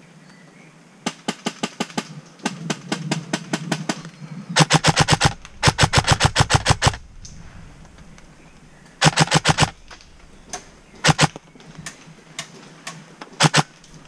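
Airsoft electric rifles firing on full auto in short bursts of rapid clicking shots, about ten a second. The loudest bursts come a little before the middle.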